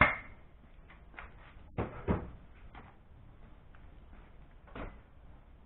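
A sharp metallic clank that rings briefly, then two knocks in quick succession about two seconds in and a lighter knock near the end: tools and parts being handled in a workshop.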